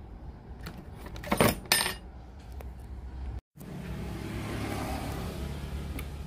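Mechanical clacks from handling a Sony CFS-1145S radio cassette player, two loud ones about a second and a half in. The sound then cuts out for a moment and comes back as a steady electrical hum with hiss.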